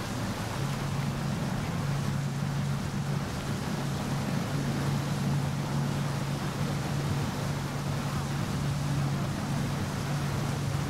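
Boat motor running steadily with an even low hum, over a wash of wind and water noise.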